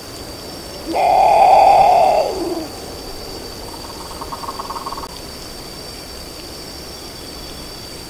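Great potoo (Nyctibius grandis) calling: one loud, harsh call about a second in, lasting over a second and dropping in pitch at its end, then a fainter pulsed call near the middle.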